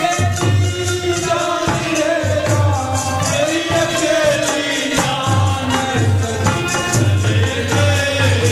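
Devotional folk song: a male voice singing a melodic line over a steady drum beat and jingling hand percussion.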